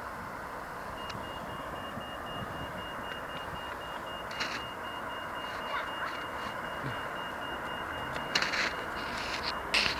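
Toucan crossing's audible pedestrian signal bleeping rapidly at one steady high pitch, starting about a second in, the cue that it is safe to cross. A few short knocks come near the end.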